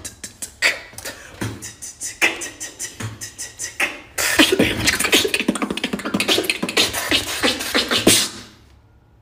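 Beatboxing: a mouth-made beat of fast hi-hat-like ticks with a kick about every three-quarters of a second, which turns louder and denser about four seconds in as more beatboxing piles on, then stops just after eight seconds.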